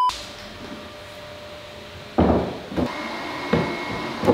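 A brief steady electronic beep, then a quiet stretch. About two seconds in comes a scrape and three sharp knocks as a black 3D-printed plastic motor-mount frame is set and pressed onto a 3D-printed plastic boat hull.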